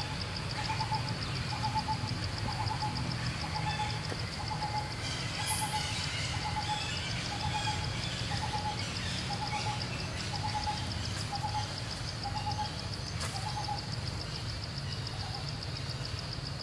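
Outdoor ambience: a bird's short note repeated about once a second, stopping about 13 seconds in, over a steady high insect buzz and a low rumble.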